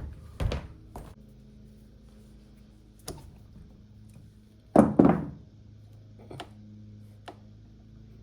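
Scattered knocks and clunks of parts and tools being handled during motorcycle disassembly, about six in all, the loudest a close pair of heavy thunks about five seconds in, over a faint steady hum.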